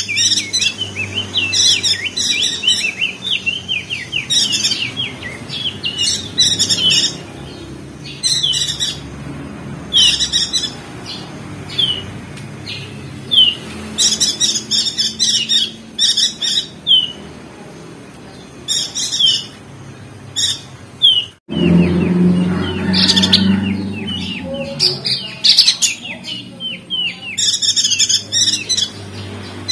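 Perenjak daun (opior jambul) birds chattering in quick bursts of high, rapid chirps and trills, several birds calling together as a flock. The sound drops out suddenly for a moment about two-thirds of the way through.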